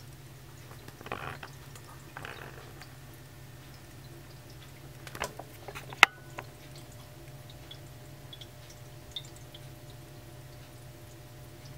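Ceramic cat drinking fountain running: water from the spout trickles and drips into the bowl over a steady low hum. A few clicks about five seconds in end in one sharp knock, the loudest sound.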